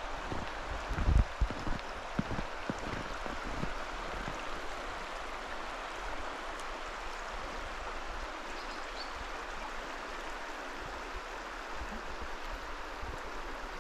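Flowing water of a stream or river: a steady rushing, with a few low thumps in the first few seconds, the loudest about a second in.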